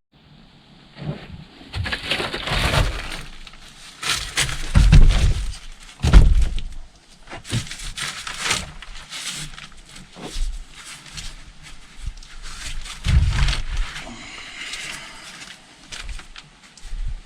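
Boat floor being torn out: irregular cracking, crunching and knocking as the material is broken apart, with the loudest cracks about five and six seconds in and again around thirteen seconds.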